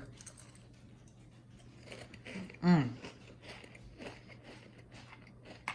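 Quiet crunching and chewing of Cheez-It crackers, with scattered small crackly clicks, a brief falling hum of voice about halfway through and a sharp click near the end.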